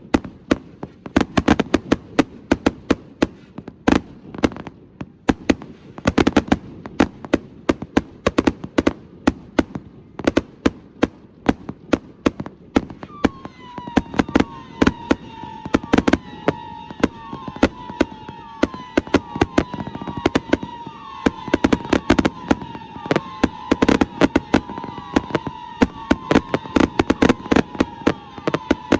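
A rapid, continuous barrage of firework bangs from Astroboy consumer fireworks. About halfway through, a sustained high whistle with short pitch swoops comes in over the bangs.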